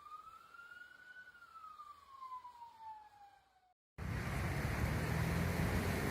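Emergency-vehicle siren, faint, wailing slowly up and then down in one long sweep, cut off about three and a half seconds in. A louder steady rushing noise with a low rumble follows.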